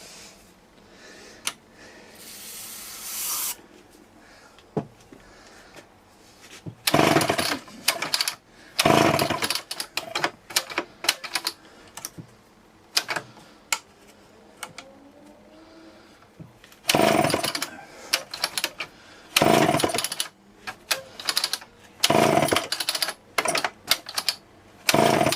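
1974 Homelite XL-12 two-stroke chainsaw being pull-started: about six times the engine fires and sputters for a second or so, then dies again without settling into a run. A short hiss comes a couple of seconds before the first attempt.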